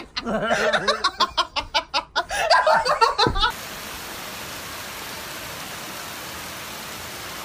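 A person laughing hard in quick repeated bursts, which cuts off about three and a half seconds in, giving way to a steady, even hiss.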